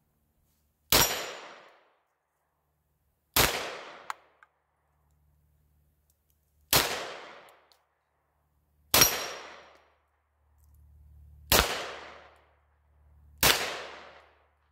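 Walther PDP 9mm semi-automatic pistol fired six times in slow, deliberate single shots, a few seconds apart. Each shot dies away with about a second of echo.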